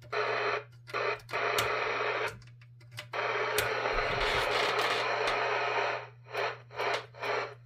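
Cobra 142 GTL CB base station's speaker hissing with receiver static, turned up high, in stretches that start and stop, with a long stretch in the middle and several short bursts near the end. A steady low hum runs underneath. No squeal or feedback whistle: it was cured by disconnecting the audio shield wire.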